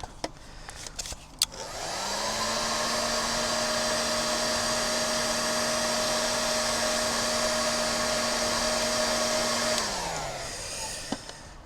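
Heat gun switched on with a few small clicks before it, its fan motor spinning up to a steady whine with a hiss of blown air. It runs for about eight seconds while shrinking heat-shrink sleeving over a freshly crimped wire connector, then is switched off and winds down.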